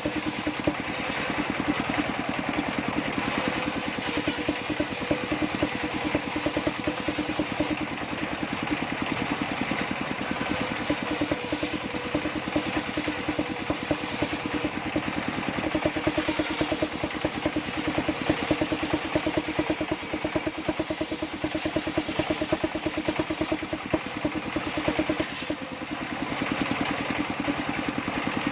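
Engine-driven circular saw bench running with a Pilana blade, sawing sengon wood: a fast, even engine beat under a steady hum, with the hiss of the cut rising and easing over stretches of several seconds.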